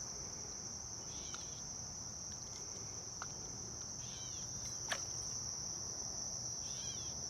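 Crickets trilling steadily in a continuous high-pitched chorus, with a few faint short chirps and a single sharp click about five seconds in.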